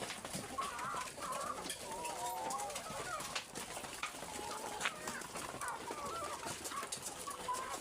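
Chickens clucking with many short, wavering calls overlapping each other, the contented sounds of a flock that has just been fed, with scattered short clicks among them.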